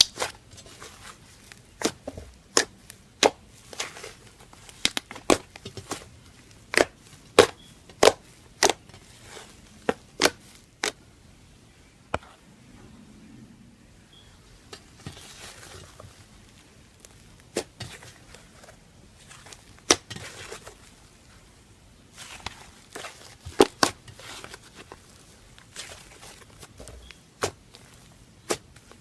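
Slime being pressed and squeezed by hand, giving off sharp, irregular pops and crackles, some in quick clusters, with softer crinkly squishing between them.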